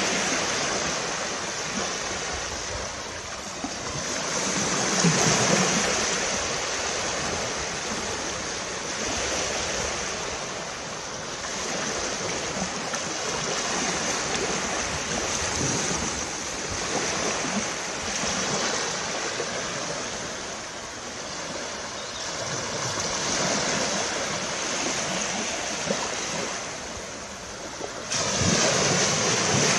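Small waves breaking and washing up a sandy shore. The hiss of the surf swells and fades every few seconds, with a louder wave near the start and another near the end.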